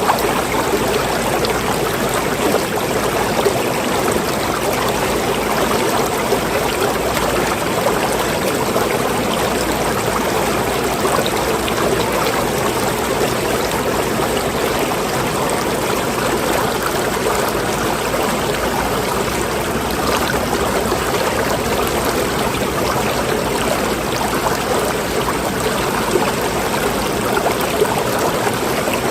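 Running water flowing steadily with a constant trickling rush, like a stream.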